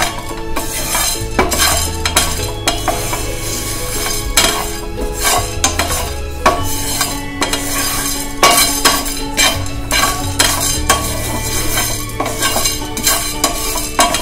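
A wooden spatula stirring and scraping whole spices as they dry-roast in a nonstick pan, in irregular clicks and scrapes, with background music running under it.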